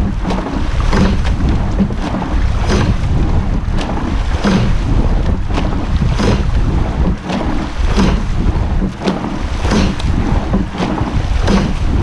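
Rowing crew's oars working together at about 34 strokes a minute: a sharp knock of the oars in their gates with blade splash, repeating about every 1.8 s, over heavy wind rumble on the microphone.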